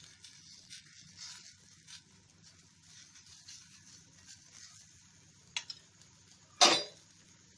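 Buckwheat-flour chilla sizzling faintly in oil in a nonstick frying pan, with light scraping and clicks from a steel spoon. One sharp knock against the pan comes near the end.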